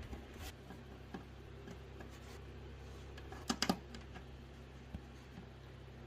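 A few light clicks and taps, with a quick run of three sharper clicks about three and a half seconds in, over a steady low hum.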